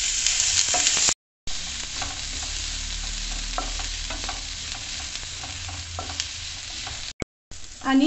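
Chopped onions sizzling in hot olive oil in a nonstick frying pan, with a spatula scraping and stirring through them. The sound drops out completely for a moment twice, about a second in and near the end.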